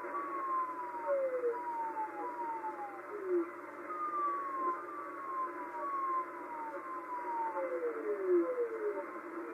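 Shortwave radio reception on 4631 kHz: a string of short pings, each gliding down in pitch for about half a second, following each other roughly once a second at several different pitches and sometimes overlapping, over steady receiver hiss.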